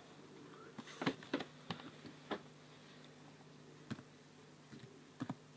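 Faint keystrokes on an HP Chromebook 11 keyboard: about ten short, irregular clicks as a Wi-Fi password is deleted and typed in again.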